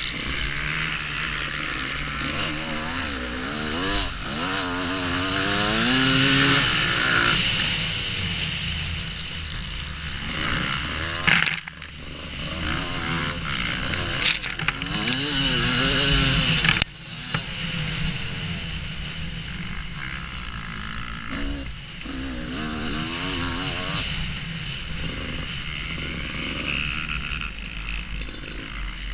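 Husqvarna WR250 two-stroke enduro motorcycle being ridden off-road, the engine note rising and falling as the throttle opens and closes, with a few sharp knocks in the middle.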